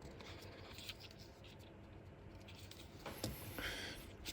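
Faint scratching and rustling of fingers picking at a torn adhesive strip on a phone frame, a few short scrapes about three seconds in.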